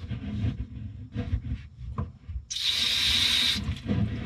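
A kitchen sink's cold-water shut-off valve cracked open with its supply hose off, water jetting hard from the outlet into a bowl as a hiss for about a second before it is shut off sharply. Before the jet come rubbing and handling sounds on the valve. The strong jet shows the cold line is getting full pressure and the valve is fine.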